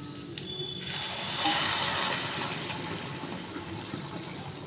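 Boiled water poured in a stream from a steel pot into a non-stick kadhai of sautéed vegetables, splashing into the pan. The pouring starts about a second in, is loudest soon after, and eases off towards the end.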